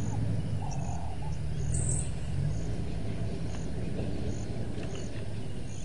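Bushveld evening ambience: birds chirping sporadically over a steady low rumble, with a faint high note repeating about once a second.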